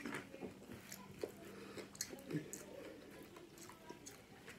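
Quiet, close-up chewing of a mouthful of nacho cheese taco, with many small wet mouth clicks and a couple of slightly louder bites.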